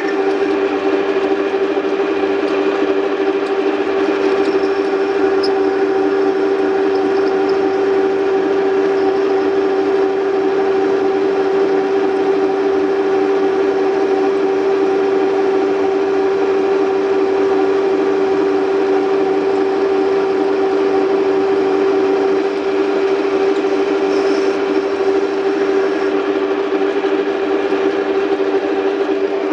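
Small metal lathe running while turning a steel axle, giving a loud, steady mid-pitched whine from its motor and gear drive that holds unchanged throughout.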